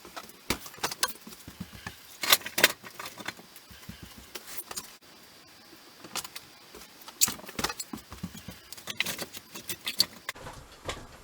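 Irregular light clicks, clinks and knocks of objects being handled and set down, with a quieter pause midway.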